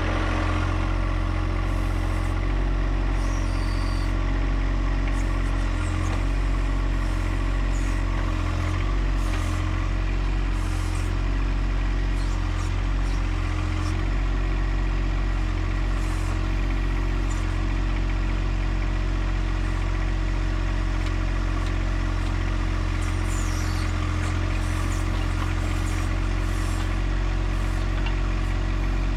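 John Deere 1025R compact tractor's three-cylinder diesel engine running steadily while driving the 260B backhoe's hydraulics to break up hard garden ground.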